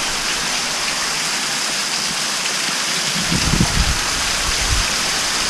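Heavy hurricane rain pouring down steadily, with water streaming off a roof edge onto wet pavement. Irregular low rumbles join in from about three seconds in.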